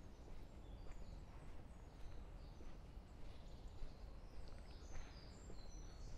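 Small birds chirping in short, high calls that come thicker in the second half, over a steady low background rumble, with a few soft footsteps.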